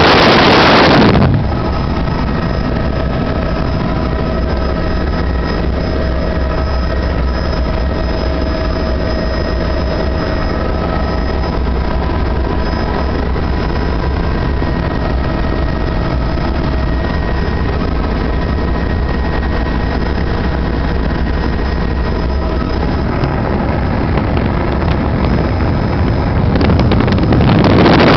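Helicopter in flight: a steady drone with a low rumble and a steady whine over it. Loud wind noise on the microphone fills the first second or so and comes back near the end.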